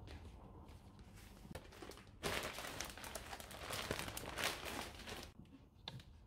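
Plastic bags of potting mix crinkling as they are handled and set down. The rustling is faint at first, then a denser, louder crinkling lasts about three seconds from around two seconds in, then it settles to a few small rustles.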